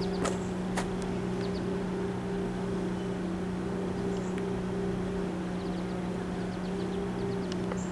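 A steady low hum with one higher overtone, from trains at the station, with a few sharp clicks near the start and faint short high chirps later.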